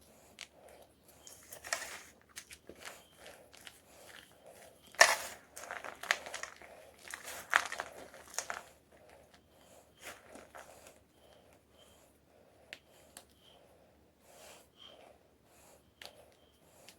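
Homemade gym chalk crunching and crumbling in irregular crackly bursts, loudest about five and seven and a half seconds in, then sparser and quieter.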